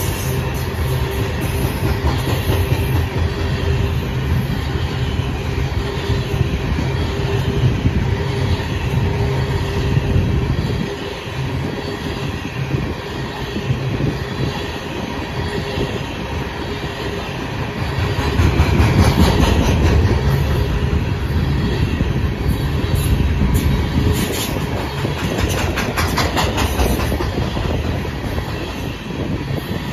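Coal hopper cars of a long freight train rolling past: a steady rumble of steel wheels on the rails with a rapid clatter of clicks. A thin steady tone rides over it for the first ten seconds or so, and the rumble swells about two-thirds of the way through.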